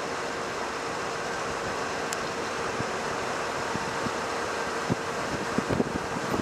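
Steady noise of a moving vehicle: a constant hum under even road and wind noise, with a few low bumps in the last second or two.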